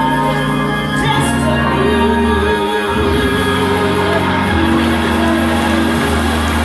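Gospel music with singing: a voice holding a wavering, vibrato note over steady held chords and bass.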